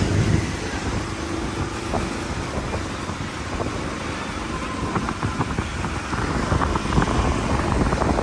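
Road vehicle in motion: a steady low rumble of engine and road noise, with scattered knocks and rattles that grow busier in the second half.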